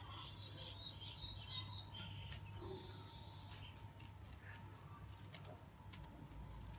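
Leafy green sprigs rustling and swishing as they are shaken over a kitten, with a quick run of high chirps in the first two seconds and a brief held high tone near the middle.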